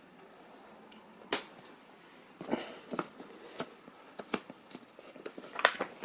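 A paper instruction booklet being handled and its pages turned: light, sharp paper clicks and crinkles, one about a second in, then a quick scatter of them from about two and a half seconds on.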